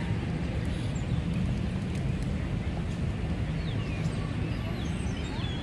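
Steady low rumble of city-square background noise, with a few faint, high bird chirps.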